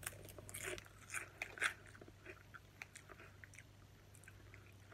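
A thin potato chip being bitten and chewed: irregular crisp crunches, the louder ones in the first couple of seconds, then fewer and fainter as the chewing goes on.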